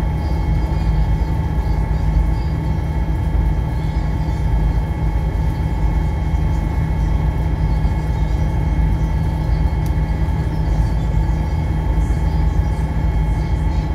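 Ferry's engine running steadily under way: a deep drone with a steady whine above it, over the rush of water along the hull.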